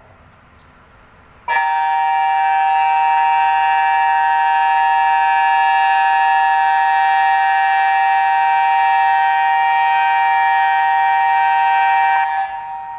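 InaTEWS tsunami early-warning siren sounding a loud, steady tone with no rise or fall. It starts abruptly about a second and a half in, holds for about ten seconds and fades near the end. It is a test of the warning system.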